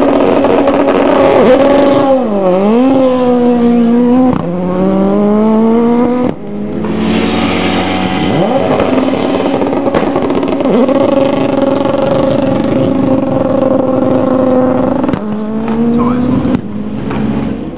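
Formula Two single-seater race cars, each with a turbocharged 1.8-litre four-cylinder engine, passing at speed. Their engine notes overlap, dipping and climbing in pitch with gear changes. The loudest car goes by about eight seconds in.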